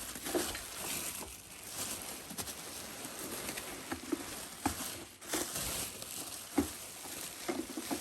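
Packing material rustling and crinkling as a boxed vacuum cleaner is unpacked, with a handful of light knocks and taps from handling.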